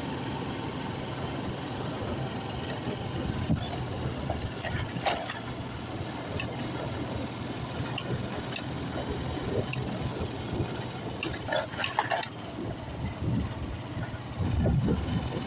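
A vehicle's engine runs steadily as it drives along a dirt road, with constant road noise and a few brief clicks or rattles, several of them bunched together about three-quarters through.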